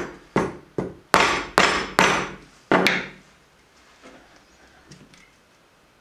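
A rubber mallet strikes a 3D-printed plastic mold six times in about three seconds, each blow a sharp knock with a brief ring. The blows are trying to loosen a cured silicone part that is stuck fast in the mold. After the blows come only a couple of faint handling knocks.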